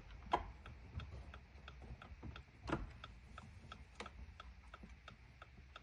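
A plastic trim piece under a car's dashboard being worked loose by hand, giving three sharp clicks, with a faint steady ticking of about three or four a second behind them.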